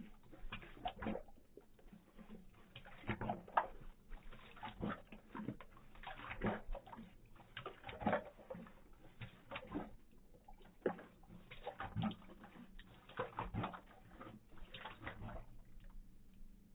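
Great Dane lapping water from a metal watering can: irregular wet splashes and slurps of its tongue in the water, a few a second with no steady rhythm.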